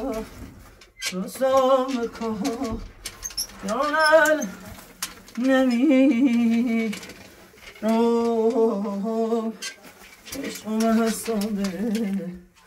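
A voice singing slow, drawn-out phrases of a melody with a wavering vibrato, each phrase a second or two long with short pauses between.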